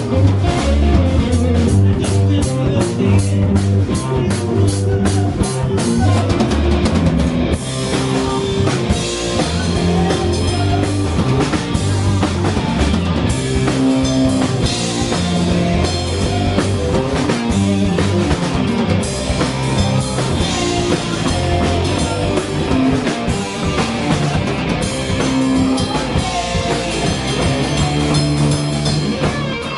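Rock band playing live and loud: distorted electric guitars, bass and a drum kit, with rapid drum hits in the first few seconds and a change in the groove a few seconds later.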